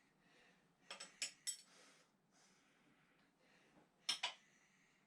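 Light metallic clinks of hand tools and small engine parts being handled: three close together about a second in, and two more near the end.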